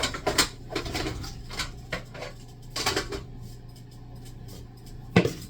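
Kitchen clatter of green bananas being put into a pot: a string of separate knocks and clunks, the loudest near the end, over a steady low hum.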